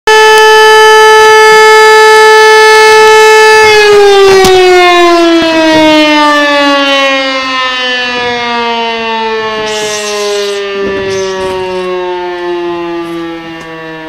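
E57 electro-mechanical civil defense siren sounding a real alarm, not a test. It holds a steady high wail for a few seconds, then is switched off and winds down, its pitch and loudness falling slowly and steadily.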